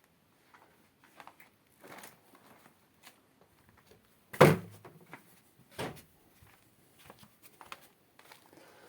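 Scattered light knocks and clicks, with one loud thump about four and a half seconds in and a softer one a little over a second later.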